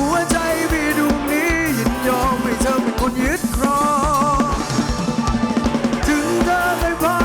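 Live band playing an instrumental break of a Thai ramwong dance song: a steady drum-kit beat with bass drum and snare under a wavering lead melody.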